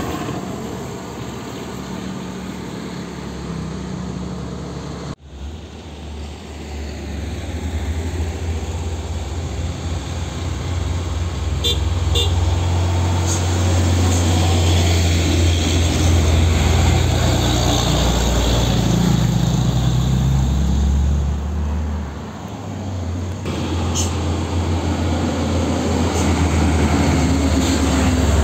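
Heavy diesel cargo trucks running on a road with a deep, steady engine rumble, across a few abrupt cuts. A couple of short horn toots come about twelve seconds in.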